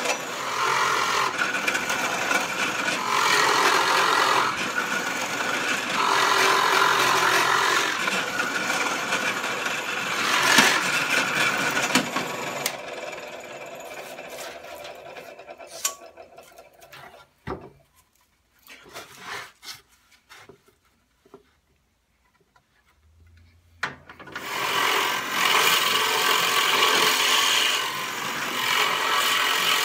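Power drill boring out holes in a hardwood vise jaw, the bit cutting and rubbing through the wood in surges. About halfway through the drilling fades and stops, leaving several seconds of near quiet with a few knocks, then the drilling starts again.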